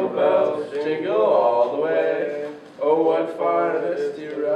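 Male voices singing a Christmas carol, with notes held and sliding in pitch.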